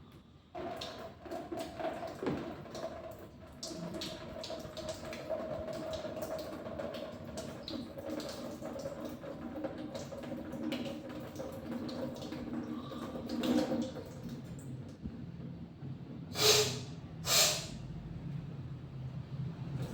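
Lukewarm salt water from a neti pot running through the nose during jal neti nasal rinsing: a steady trickle with many small drips falling into a basin. Near the end come two short, loud bursts of noise.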